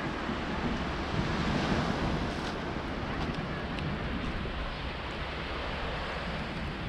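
Wind blowing on the microphone, with a steady wash of small waves on the beach.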